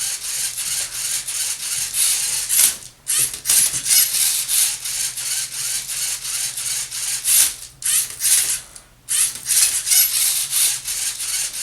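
LEGO Mindstorms NXT robot's servo motors and plastic gears whirring with a rapid, gritty chatter as it turns and flips a Rubik's Cube to scan its faces, with short pauses about three seconds in and again around eight to nine seconds.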